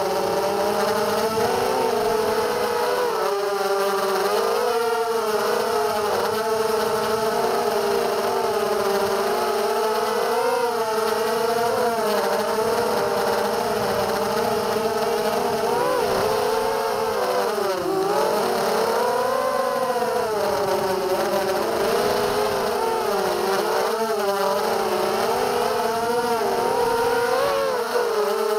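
Brushless motors and 5-inch props of a 250-size FPV racing quadcopter (DYS BE1806 2300KV motors, HQ 5040 props) whining in flight. The pitch keeps rising and falling as the throttle is worked through the turns.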